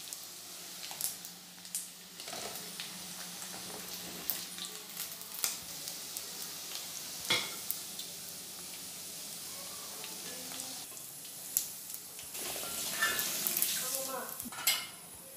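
Chicken pieces frying in hot coconut oil in a metal kadai, a steady sizzle, as the now-crisp pieces are lifted out. A slotted metal spoon scrapes and clinks against the pan and a steel bowl several times.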